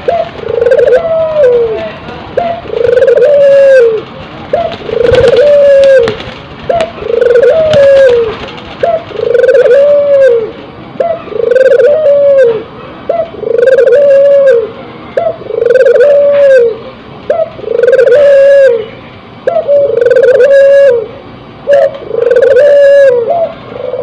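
Barbary dove (puter) giving its courtship bow-coo: a steady run of rolling coos, each a short note followed by an arched coo, about one every second and a half. Birds in breeding condition repeat this call.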